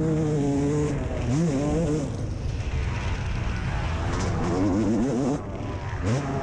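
Yamaha YZ250 two-stroke single-cylinder dirt bike engine revving hard under load on a motocross track, heard from the rider's helmet camera with rushing wind. The pitch holds, then swoops and wavers as the throttle is worked over the bumps. It drops off briefly about five seconds in, then picks up again.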